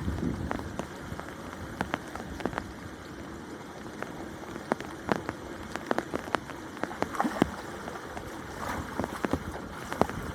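Water dripping and splashing: irregular sharp drops and splashes, some louder than others, over a steady low wash of water.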